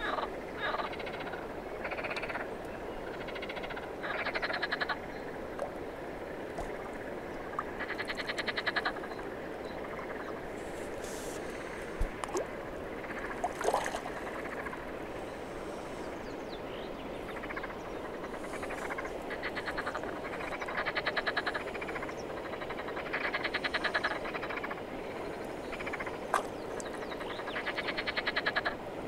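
Frogs croaking in a chorus: rattling calls made of fast pulses, each about a second long, repeating every few seconds. A couple of sharp clicks come midway.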